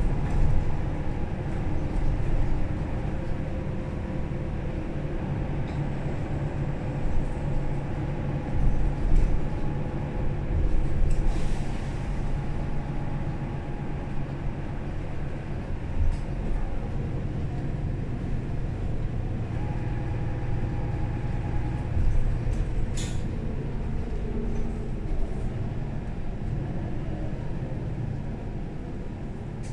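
Mercedes-Benz O530 Citaro Facelift city bus heard from inside while riding: the diesel engine and drivetrain run with a steady low rumble, and the engine tone shifts a little around 20 seconds in. There are two brief hisses, one about 11 seconds in and a shorter, sharper one about 23 seconds in.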